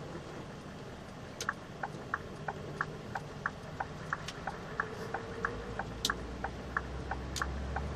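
Truck's turn-signal indicator ticking evenly, about three ticks a second, starting about a second and a half in, over the steady low running of the Scania R580's V8 engine heard from the cab.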